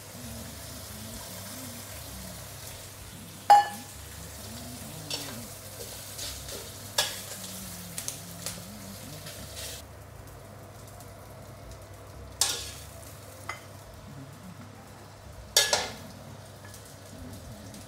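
Slices of roast pork belly sizzling as they are pan-fried in a metal wok, reheated from the fridge. A metal spatula scrapes the wok, and a few sharp clinks and knocks of utensils stand out. The sizzle thins about ten seconds in.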